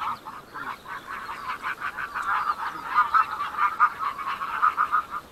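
Geese honking: many short overlapping calls in quick, uneven succession, stopping near the end.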